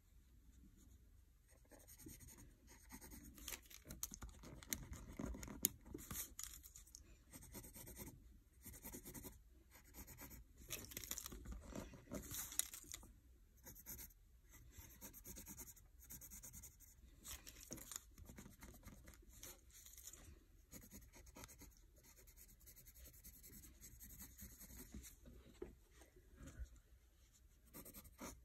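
Pencil sketching on lined notebook paper: faint, irregular scratching strokes, with busier spells of quick hatching.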